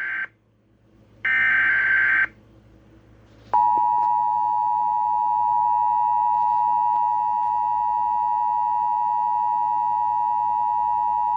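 Emergency Alert System broadcast tones. The end of one screeching SAME data burst comes first, then a full one-second data burst about a second in. About three and a half seconds in, the two-tone EAS attention signal starts and holds steady for about eight seconds, signalling that a weather warning follows.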